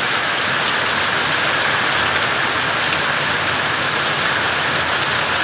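Heavy rain pouring down in a strong wind, a steady dense hiss.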